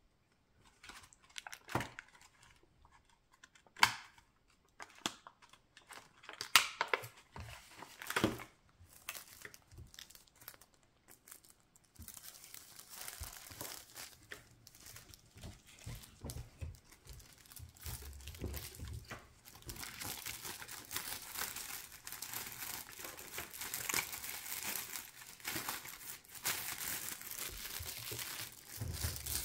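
Clear cellophane treat bags crinkling as they are handled and filled: scattered rustles and clicks at first, then from about twelve seconds in a continuous crinkling.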